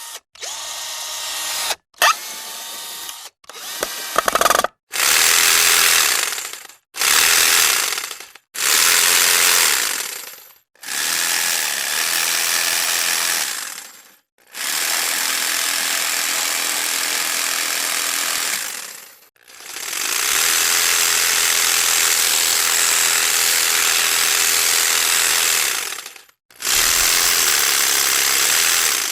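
A run of about ten separate tool sound effects, each cut off by a brief silence. The first few are short and the later ones run several seconds each; most sound like power tools running steadily.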